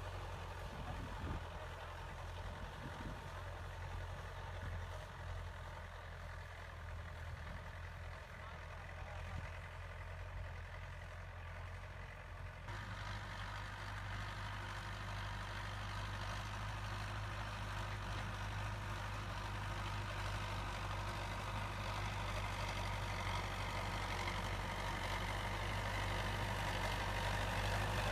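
Belarus 820 tractor's four-cylinder diesel engine running steadily under load while tilling a field. It grows louder over the second half as the tractor comes back toward the listener.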